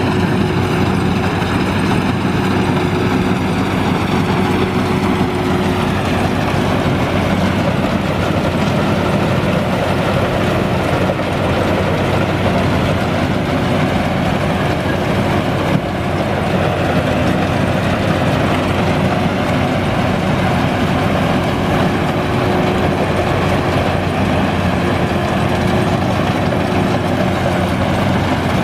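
Combine harvester engine and machinery running steadily, with a constant low hum.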